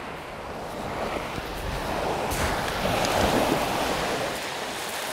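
Sea waves washing onto a round-pebble beach, the wash swelling to its loudest a little past halfway and then easing off.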